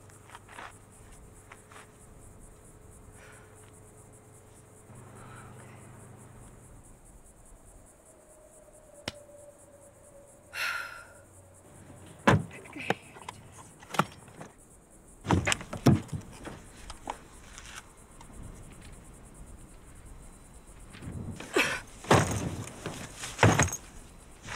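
Car door opened and a bag handled at the car: a run of thunks and knocks from about halfway through, the loudest near the end. Faint crickets chirr underneath.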